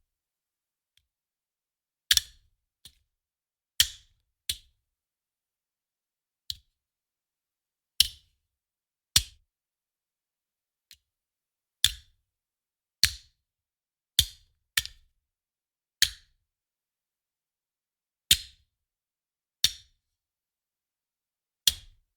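A series of sharp, loud single cracks from a weapons sound-effect recording, about fourteen of them, spaced irregularly a second or two apart, each dying away quickly.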